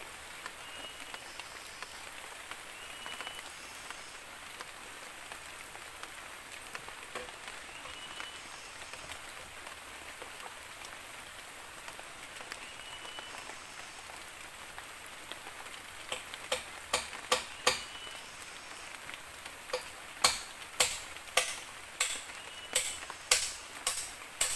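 Steady rain falling on the forest. About two-thirds of the way in, sharp knocks of bamboo being struck start, roughly two a second, in two runs with a short pause between, louder than the rain.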